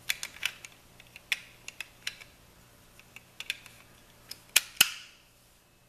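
Irregular sharp plastic clicks and small rattles of a tripod's pan head and quick-release plate being handled and its locking parts worked, with two louder snaps in quick succession about four and a half seconds in.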